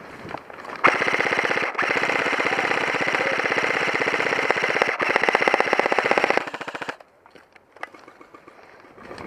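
Airsoft electric rifle firing on full auto: one long rapid burst of about six seconds, with a short break soon after it starts, and scattered single shots before and after.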